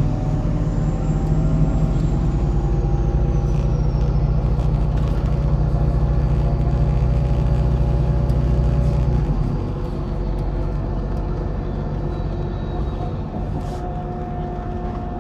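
MAZ-103 city bus's diesel engine running under load, heard from inside the bus, with a faint high whine falling in pitch in the first few seconds. About nine seconds in the engine note drops and it eases off.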